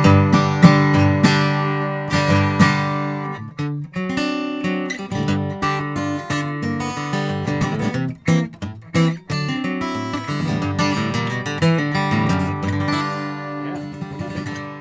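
Gibson HP-635W acoustic guitar, spruce top with walnut back and sides, being strummed: full chords ringing out, with short pauses about four and eight seconds in.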